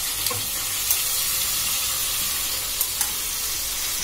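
Boiled mixed vegetables sizzling steadily as they go into hot spiced oil in a steel kadhai, with a few light clicks of a steel spatula against the pan.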